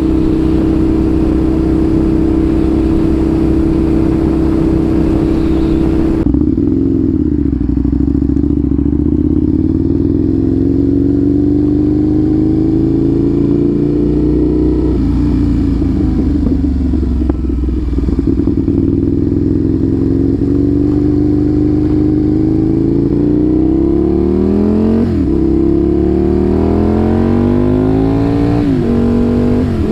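Loud V-twin engine of a 2007 Aprilia RSV 1000R sportbike running through its new exhaust while being ridden. The engine holds a steady pitch for the first several seconds, then its pitch dips and climbs as the revs fall and rise. Near the end come several quick drops in pitch followed by renewed climbs.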